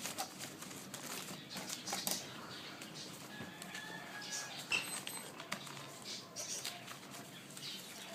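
Parcel packaging handled and unwrapped by hand: an irregular run of rustling, crinkling and small clicks as it is opened.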